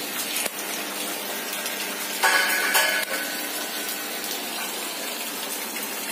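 A homemade spot welder, built from an old arc-welder transformer rewound to about 3 volts and 1000 amps, buzzes loudly for under a second about two seconds in as it fuses a joint in steel wire mesh. A steady hiss runs underneath, with a small click about half a second in.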